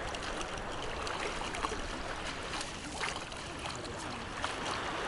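Shallow seawater sloshing and splashing around wading legs, with scattered small splashes and drips as a wet fishing net is gathered up out of the water.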